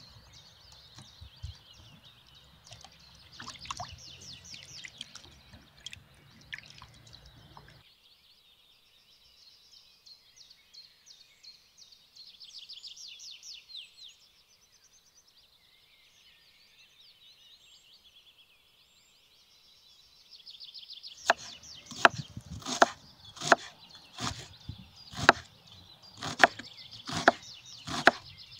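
Small birds singing and chirping throughout. From about two-thirds of the way in, a kitchen knife chops an onion on a wooden cutting board, about one and a half strokes a second.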